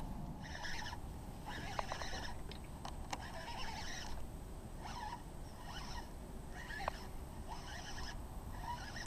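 Baitcasting reel being cranked in short spurts, a high whirring from its gears starting and stopping about eight times, with a few sharp clicks in between.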